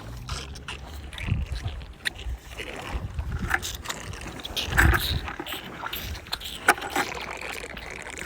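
Wind rumbling on the microphone, with scattered short knocks and clicks, the loudest about five seconds in.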